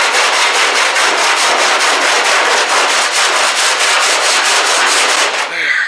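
Body file in a two-handled holder rasping back and forth across the bare sheet-steel roof of a 1964 Volkswagen Beetle, in quick, even strokes. The filing shows up the high spots left after hammer-and-dolly straightening. It stops shortly before the end.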